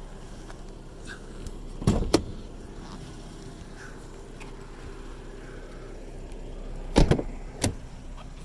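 Car doors of a 2014 Mercedes-Benz C300 being worked: two pairs of sharp clunks, about two seconds in and again near the end, over a steady low hum.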